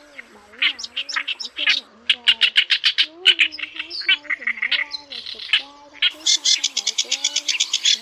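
Reed warbler song: harsh, chattering phrases of quickly repeated notes, with a faster run of rapid notes in the last couple of seconds. A lower, wavering tone runs underneath throughout.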